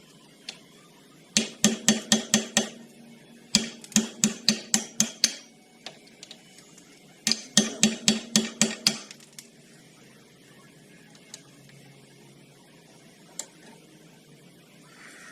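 Three quick runs of hammer blows on metal, six to eight sharp ringing strikes each at about five a second, with short pauses between the runs.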